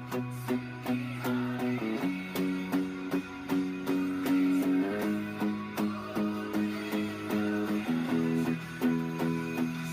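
Electric guitar played through a Bogner Uberschall amp: chords strummed in a steady rhythm, about two to three strokes a second, with the chord changing every few seconds.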